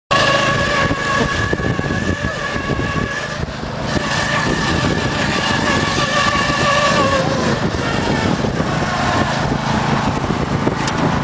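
Lawn mower engine running hard and steady, with a high whine over a rough low rumble. It cuts in suddenly and dips briefly a few seconds in.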